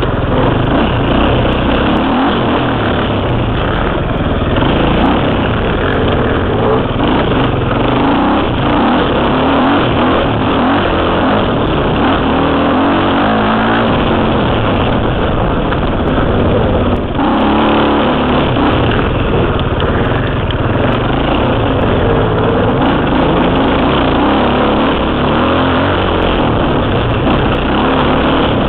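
KTM 300 two-stroke dirt bike engine running hard under changing throttle on a trail ride, heard close up from a helmet camera, with a brief drop in engine sound about seventeen seconds in.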